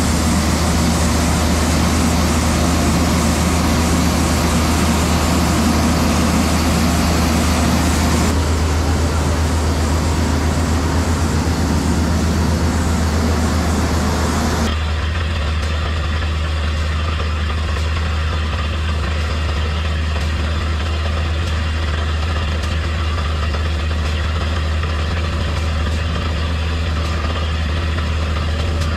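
Heavy engine of a truck-mounted borewell drilling rig running steadily with a deep drone and a loud hiss over it. The hiss drops away abruptly about halfway through, leaving the low engine drone.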